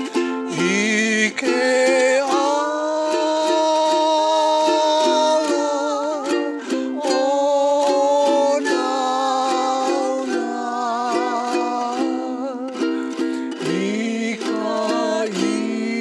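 A man and a woman singing a Hawaiian song together in two voices, with long held notes, to a steadily strummed ukulele.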